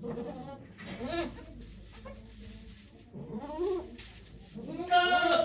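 Goat bleating: three calls, the last near the end the loudest.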